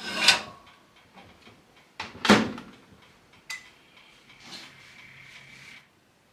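Yamazen microwave oven being loaded and started: a knock as the dish goes in, the door shut with a sharp clunk about two seconds in, a short beep as it is started, then the oven running with a steady hum that stops shortly before the end.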